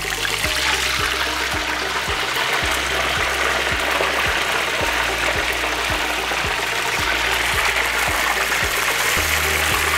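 Frozen cassava (yuca) strips frying in a pan of hot oil, a loud steady sizzle starting the moment they go in, the ice-cold yuca making the oil bubble hard. A music bed with a steady beat plays underneath.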